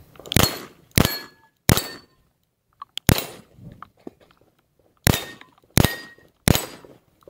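Seven revolver shots fired at steel targets: three about two-thirds of a second apart, a pause, a single shot, another pause, then three more at the same pace. Some shots are followed by the brief ring of struck steel.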